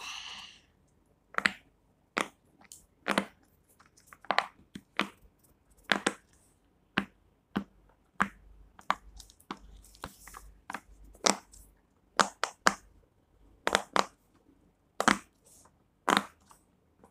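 Silicone pop-it fidget toy shaped like a pineapple, its bubbles pressed in one after another with the fingers: a string of sharp pops, irregular, about one or two a second.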